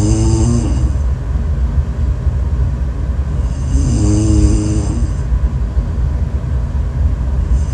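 A person snoring: a steady low rumble, with a short pitched sound that rises and falls on each breath about every four seconds.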